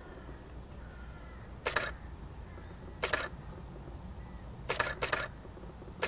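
Canon 5D Mark III DSLR shutter firing in short clicks: one a little under two seconds in, one about three seconds in, and two in quick succession near five seconds.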